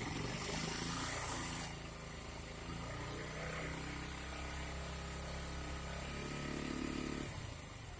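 KTM Duke 200's single-cylinder engine running at raised revs under throttle, easing back about seven seconds in. It is being revved to test the stator's AC output with the regulator disconnected.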